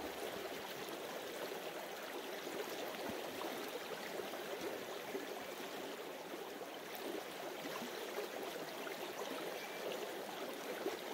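Creek water running steadily over rocks, an even rushing and burbling.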